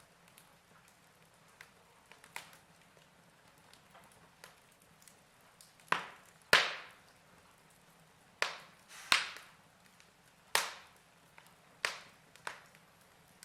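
Wood fire crackling: scattered sharp pops and snaps over a faint steady background, with a run of louder pops in the second half.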